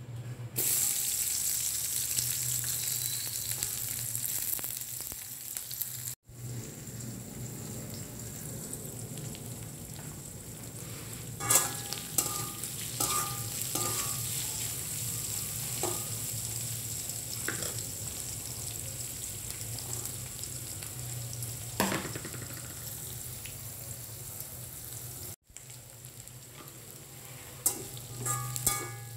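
Sliced onions and chillies sizzling in hot oil in an aluminium wok. The sizzle starts suddenly about half a second in as the onions hit the oil, then runs steadily while a metal spatula stirs them, clinking against the pan now and then.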